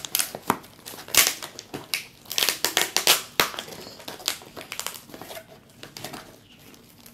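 Cardboard mailing box being pried open by hand: packing tape tearing and the flaps crinkling and scraping in irregular rustling strokes, loudest in the first three seconds or so, with a sharp click about three and a half seconds in.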